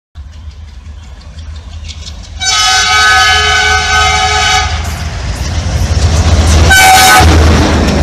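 WDG3A diesel-electric locomotive with its ALCO 16-cylinder engine, running at speed and sounding its air horn: one long blast of about two seconds, then a short blast a couple of seconds later. Under the horn is the engine's low rumble, which grows louder as the locomotive and its coaches come past.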